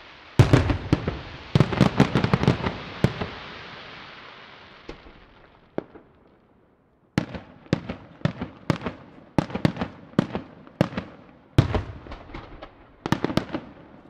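Aerial firework shells bursting in a display: a cluster of sharp bangs that fades away, a short lull about halfway, then a quick run of bangs, two or three a second.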